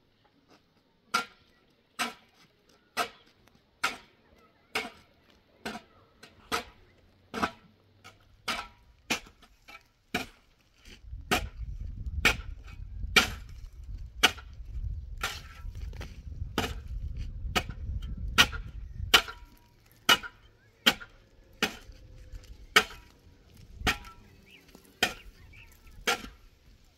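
A hand tool striking wood over and over, a sharp blow about once a second, with a low rumble underneath for several seconds in the middle.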